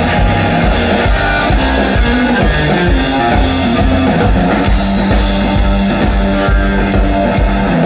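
Rockabilly trio playing live, an instrumental passage with no singing: Gretsch G6120 hollow-body electric guitar over upright bass and a steady drum beat.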